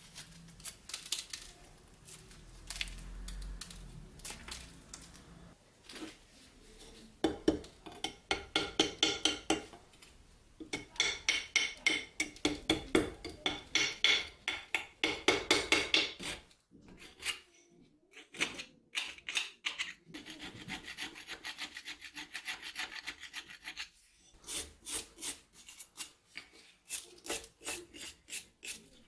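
Hand file or scraper worked back and forth over the rusted steel of an old dagger, taking off rust. It comes as runs of quick, even strokes, about three a second, some with a ringing metallic edge, broken by short pauses.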